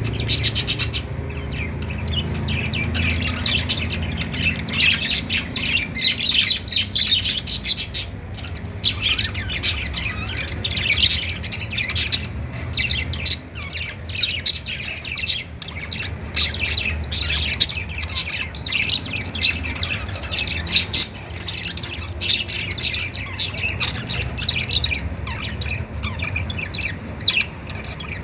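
Budgerigars chattering: quick, overlapping chirps and squawks from several birds, without a break, over a faint steady low hum.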